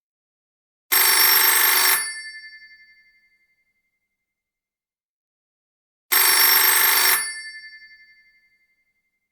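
Telephone ringing: two rings about five seconds apart. Each is about a second of loud ringing that then fades away over a second or so.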